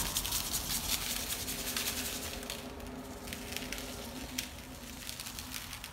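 Dry seasoning rub being shaken from a shaker onto a bacon-wrapped pork loin: a light pattering of granules with scattered small clicks, over a low steady hum.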